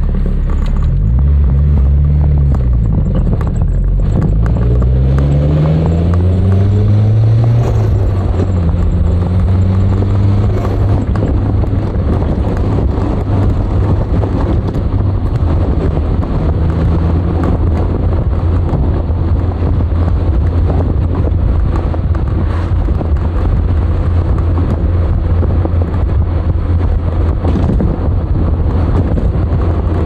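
Nissan Skyline DR30 RS Turbo's FJ20ET four-cylinder turbo engine accelerating, its pitch rising twice with a gear change between, then settling into a steady cruising drone with road noise.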